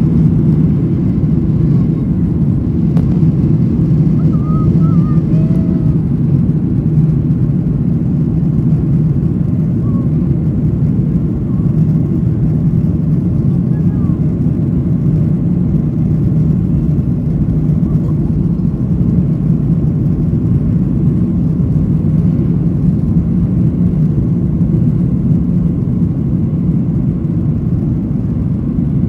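Boeing 737-800's CFM56-7B turbofan engines at takeoff power, heard inside the cabin as a steady low rumble together with the runway noise of the takeoff roll.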